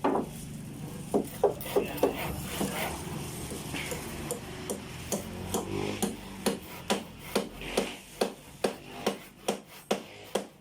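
Hand tool working wood: scattered knocks at first, then regular strokes about two a second in the second half.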